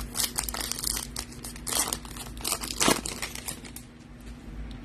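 Foil wrapper of a Topps Chrome trading card pack crinkling and tearing as it is ripped open, in quick irregular crackles that thin out after about three seconds.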